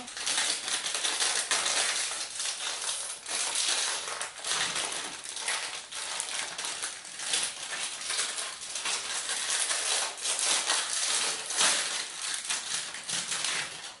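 Plastic packaging crinkling and rustling, with many small irregular clicks and taps, as protective tape and wrapping are peeled off a new automatic espresso machine and its parts.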